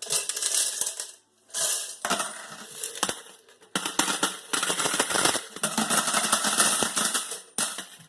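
Coins, mostly quarters, clinking and rattling as they are scooped and gathered out of a capsule vending machine's coin compartment. The clinking comes in several bursts with short pauses between them.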